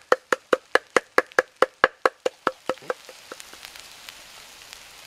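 Rapid, even chopping knocks on wood, about five a second, each with the same hollow wooden ring. They get quieter and stop about three seconds in, leaving a faint hiss.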